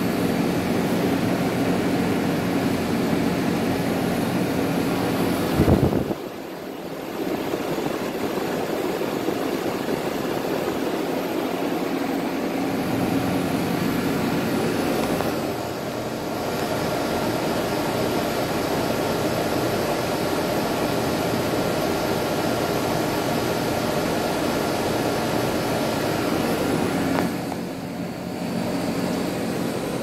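American Standard Heritage 12 central air conditioner's outdoor condensing unit running: a steady rush of air from the condenser fan over a low, even hum. A brief bump about six seconds in is followed by a short dip in level.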